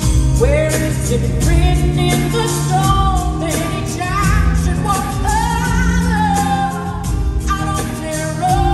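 Live pop-rock band music with drums, bass and a wavering melodic vocal line that carries no clear words.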